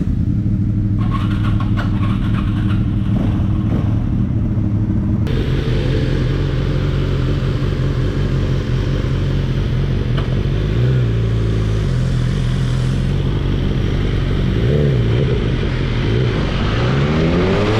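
Sport motorcycle engines idling, with brief throttle blips around eleven and fifteen seconds in and a rising rev near the end.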